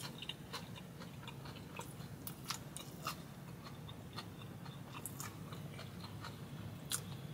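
A person chewing a mouthful of a sauced, breaded chicken-tender slider: faint, irregular crunching and small crackles from the crunchy breading, over a steady low hum.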